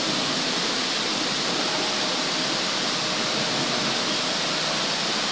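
Steady, even hiss of classroom room noise, with a faint thin tone in the middle.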